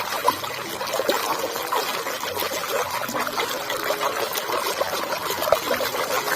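Water trickling and sloshing as a muddy toy vehicle is washed by hand in a container of clean water.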